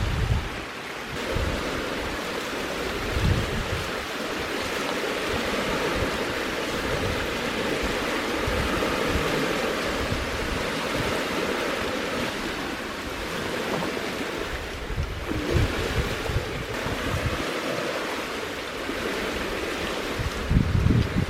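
Steady rush of outdoor wind, with gusts buffeting the microphone now and then.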